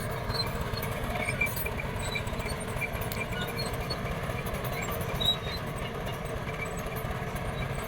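Bulldozer working at a road clearing, its diesel engine running with a steady low rumble, with a few faint short high-pitched ticks over it.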